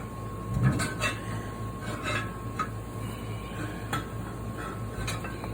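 Steel pry bars clinking, knocking and scraping against a wheel rim as a tire is levered over it by hand, with a heavier thump a little over half a second in.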